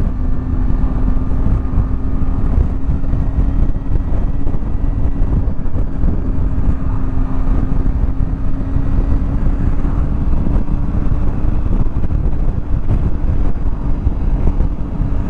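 Wind buffeting the microphone over the steady drone of a Triumph Tiger 800's three-cylinder engine cruising at road speed, its pitch creeping up a little as the bike speeds up.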